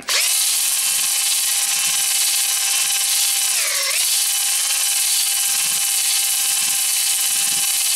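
Cordless drill spinning an oiled 240-grit flex hone back and forth in a Chevy 350 cylinder bore, deglazing the wall to restore the crosshatch. The drill's motor whine is steady, sags briefly in pitch about four seconds in, and stops near the end.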